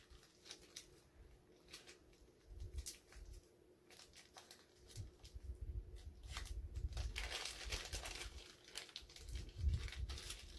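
Faint rustling and crinkling of packaging being handled, with scattered small clicks and soft bumps; the rustling is longest from about seven to eight and a half seconds in.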